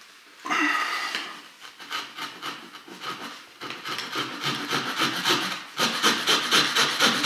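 Small folding saw blade of a red pocket knife sawing through a peeled wooden pole in quick back-and-forth strokes, getting faster and louder over the last two seconds.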